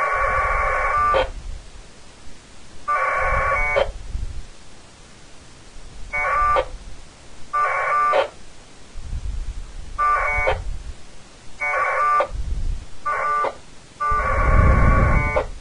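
1200-baud packet radio data bursts: short blasts of warbling two-tone modem audio traded in turns. There are eight bursts, the first and last longest, as the Winlink station connects to the gateway and sends an email over the air.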